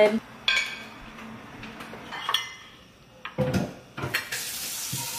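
Cutlery and serving utensils clinking and scraping against plates and dishes, in scattered knocks and clinks, with a short hiss near the end.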